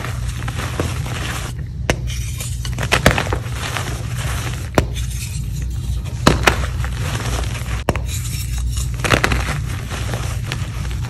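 Hands snapping and crushing blocks of reformed gym chalk: dry crunching and crumbling, with several sharp cracks as pieces break apart, over a steady low hum.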